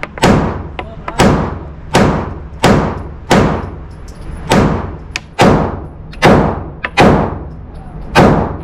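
A string of about twelve pistol shots from a Shadow Systems handgun, fired at a steady pace of a little more than one a second, each with a ringing tail.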